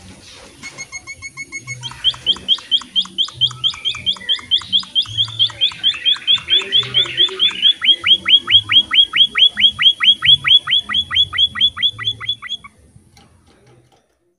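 Emprit (munia) singing: a few spaced high chirps, then a long fast run of short downslurred notes, about five a second, that stops suddenly near the end.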